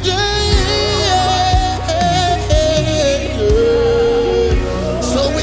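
Live gospel worship music: a band with a steady low beat about once a second, under a singer holding long, sliding notes without clear words.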